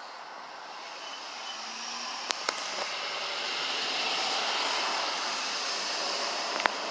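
A passing vehicle's noise swelling up over a few seconds and then slowly easing off, with a few sharp clicks: two close together partway in and one near the end.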